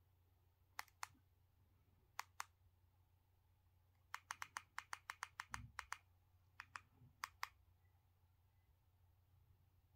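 Sharp, isolated clicks in step with navigation of a TV's on-screen menu. There are two clicks about a second in, two more a second later, a quick run of about a dozen clicks between four and six seconds, and then two pairs near seven seconds, over a quiet room hum.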